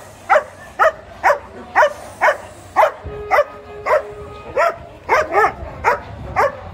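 A dog barking over and over, short sharp barks about two a second, each dropping in pitch.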